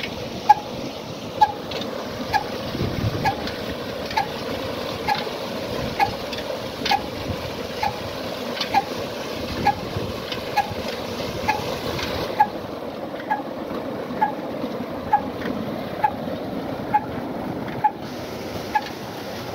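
Ruston Hornsby single-cylinder diesel engine running slowly, with a sharp exhaust beat a little faster than once a second, over the steady rush of water gushing from the tubewell pump pipes into a concrete channel.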